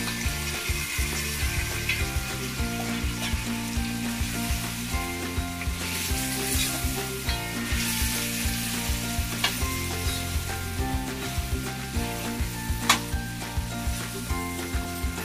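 Pressure-cooked goat head and trotter pieces sizzling as they go into hot onion-tomato masala in a hammered metal kadai, stirred and scraped with a steel slotted spoon. There is one sharp clank of spoon on pan near the end, and background music plays underneath.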